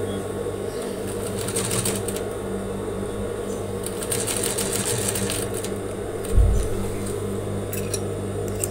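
Sewing machine running, stitching through layers of cotton fabric to lock the collar seam with a backstitch, over a steady motor hum. A short low thump about six seconds in.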